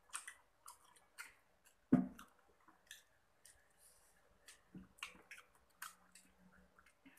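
Close-up chewing and crunching of crispy KFC fried chicken, a run of short crackly crunches. A single dull thump about two seconds in is the loudest sound.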